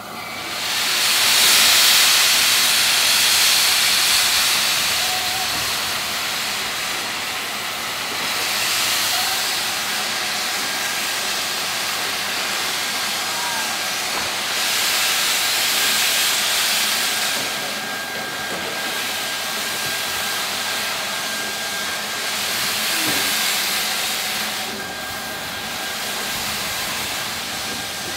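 LSWR S15 4-6-0 steam locomotive moving off slowly with its cylinder drain cocks open: a loud, continuous hiss of steam that swells and eases several times.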